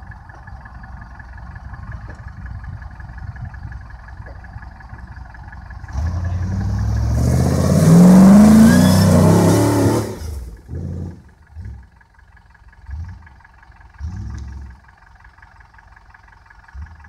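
V8 engine of a competition safari off-roader, running low at first, then revved hard for about four seconds, its pitch rising as it drives close past. After that come several short, fainter bursts of throttle.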